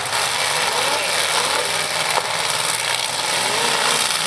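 Several demolition derby cars' engines running at once in a loud, steady din, with a single sharp knock about two seconds in.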